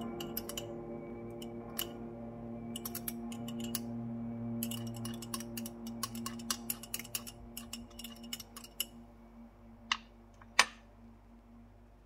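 Spoon stirring a drink in a glass mug, clinking against the glass in quick, irregular taps, then two louder single clinks near the end. Soft background music with held tones fades out underneath.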